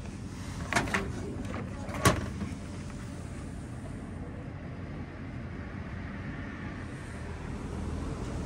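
Old National vending machine dispensing: a couple of knocks, then a sharp clack about two seconds in as a small cardboard candy box drops into the pickup tray, over a steady low rumble.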